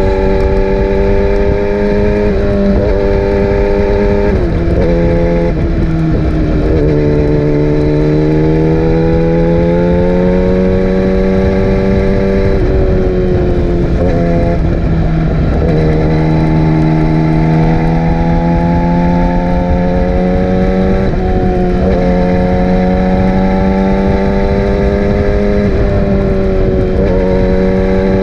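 Yamaha R6's inline-four engine running under way at mid revs, its pitch climbing slowly and then dropping at several brief breaks for gear changes.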